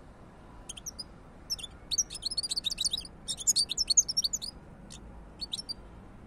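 European goldfinch singing: a few short notes, then a fast, twittering run of chirps lasting about three seconds, and two brief notes near the end.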